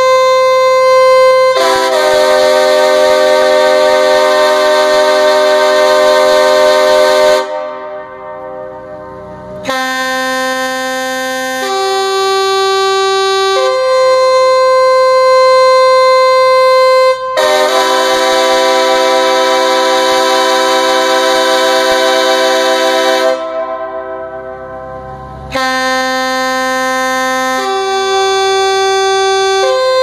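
Giant air horn sounding loud held notes: single tones stepping up in pitch, then a chord of several tones held for about six seconds before it dies down for a couple of seconds. The sequence plays twice.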